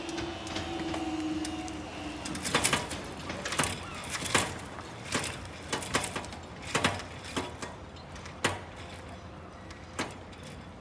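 Class 444 train's wheels squealing as it moves off from the crossing, a steady high tone that fades out about two seconds in. Then about ten sharp, irregular clacks follow.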